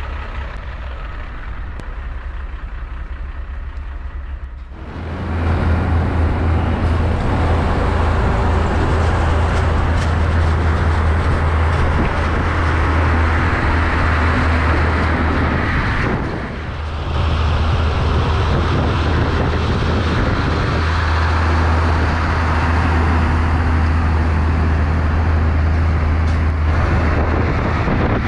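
Loaded Hino GH cement truck driving on the road: its diesel engine gives a steady low drone under road and wind noise. The sound is quieter for the first few seconds and then comes in loud about five seconds in, with a brief dip around the middle.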